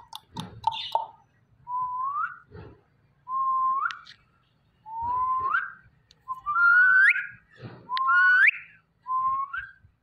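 Indian ringneck parakeet whistling: about six whistles, roughly a second and a half apart, each held on one note and then sliding sharply upward at its end.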